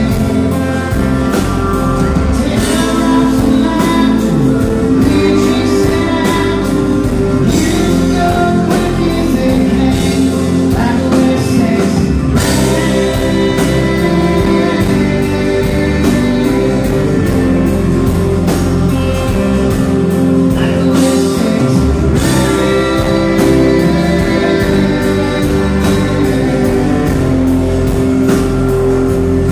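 Live country-rock band playing loudly, with drums, electric and acoustic guitars and bass, and a male lead singer singing over them.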